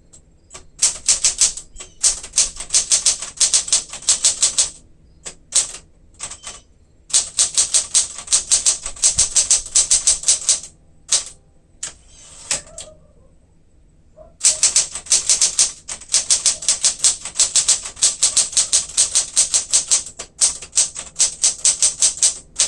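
1967 Smith-Corona Super Sterling manual typewriter being typed on in quick runs of sharp keystrokes, about five a second, broken by short pauses and a longer pause about halfway through.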